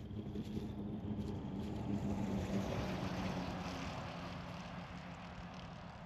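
Distant engine drone of a passing vehicle, swelling to its loudest about two and a half seconds in and then slowly fading.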